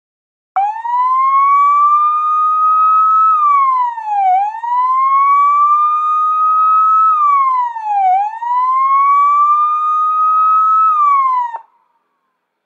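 Police siren sounding a wail: a single tone that climbs slowly over two to three seconds, then drops back in about a second, repeating three times. It starts abruptly about half a second in and cuts off sharply near the end.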